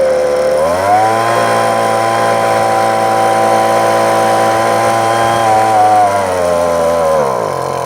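22cc two-stroke string trimmer engine running: revved up about a second in, held at a steady high speed, then dropping back toward idle near the end.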